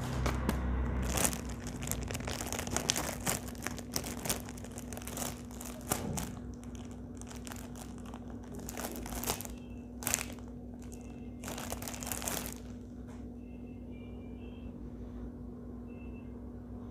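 Clear protective plastic film being peeled off a new smartphone and crumpled, in a run of crinkling, crackling rustles that thin out after about twelve seconds. A faint steady hum sits underneath.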